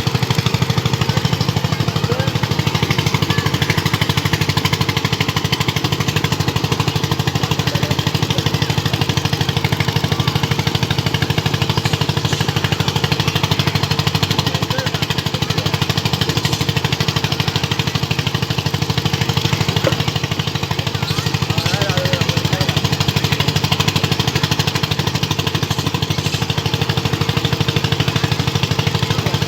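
An engine running steadily close by, with a fast, even pulse and a strong low hum that hold without change.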